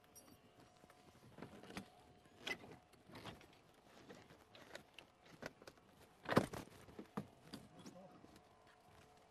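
Scattered clicks, knocks and clatter of rescue tools and car parts being handled inside a wrecked car's interior, with one louder knock about six and a half seconds in.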